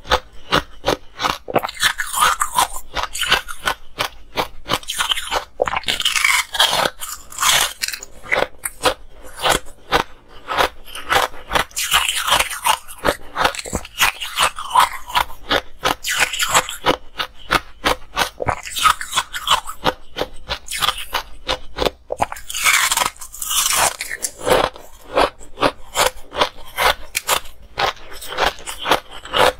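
Frozen yellow-tinted ice being bitten and chewed: a dense run of crunching and crackling, with louder bites now and then.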